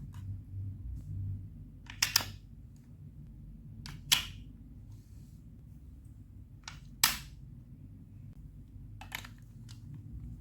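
Sharp clacks of hard plastic Lego Duplo blocks, about eight knocks at uneven intervals, some in quick pairs, over a faint low rumble.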